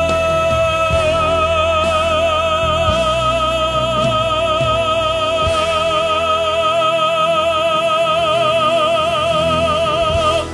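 A male singer holds the long final note of a musical-theatre ballad with vibrato that widens as it goes, over orchestral backing. The note and accompaniment stop together near the end, leaving a short fading ring.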